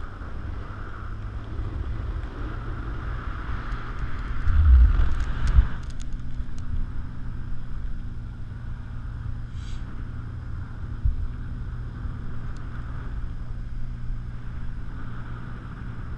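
Wind rushing and buffeting over the microphone of a camera carried aloft under a parasail, with a steady low hum underneath. A stronger gust comes about five seconds in.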